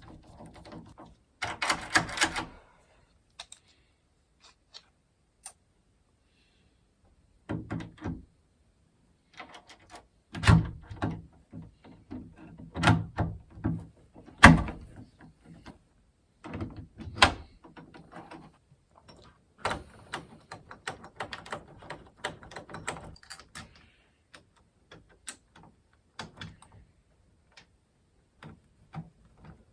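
Irregular clicks, taps and knocks of door-knob and latch hardware being handled and fitted on a door, with a dense rattle about 2 seconds in and a few louder knocks around the middle.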